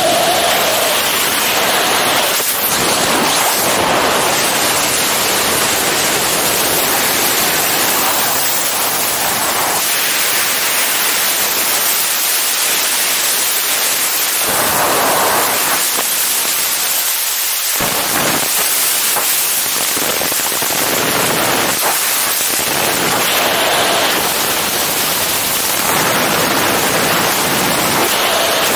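Loud, steady rush of wind buffeting the camera microphone during wingsuit flight in freefall, swelling and easing now and then.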